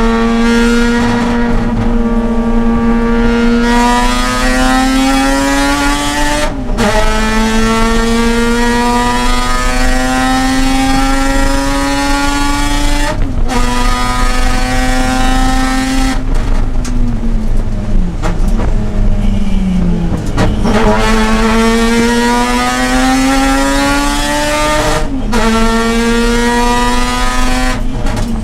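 Mazda RX-8's two-rotor rotary engine under hard acceleration on track, rising in pitch through the gears with quick upshifts about a quarter and halfway in. In the middle it falls away as the car slows for a corner, with a couple of short dips and blips on the way down, then climbs hard again with another upshift near the end.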